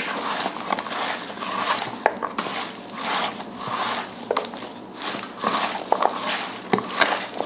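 Hands massaging seasonings and chopped vegetables into raw oxtail in a pan: wet squishing and crinkling in uneven swells, with a few sharp clicks.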